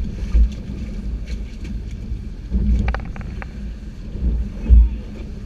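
Boat running at speed on open ocean: a steady engine hum under wind rumbling on the microphone and water rushing past the hull, with a few sharp knocks about three seconds in.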